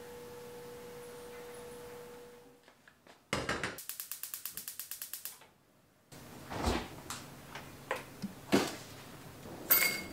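A faint steady hum at first. About three seconds in, a stovetop pressure cooker vents steam: a hiss pulsing about seven times a second for roughly two seconds. Then a few light knocks and taps as food is handled over a glass bowl on a wooden board.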